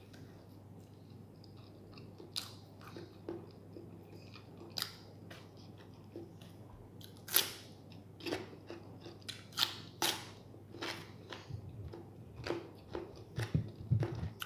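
A person chewing and biting into a sandwich and raw cucumber slices, with scattered sharp, wet crunches that come more often near the end.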